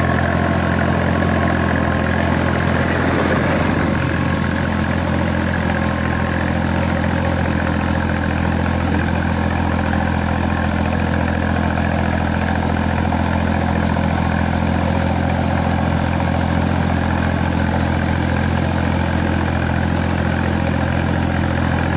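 Iseki 3510 tractor's diesel engine running steadily under load as it drags a leveling board through flooded paddy mud on cage wheels.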